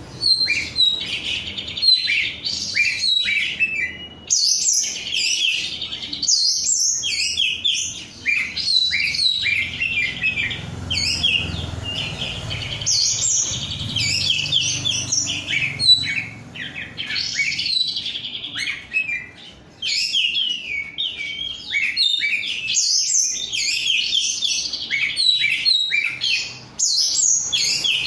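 Oriental magpie-robin (kacer) singing a fast, varied song of high chirps and whistled phrases, with brief pauses between runs.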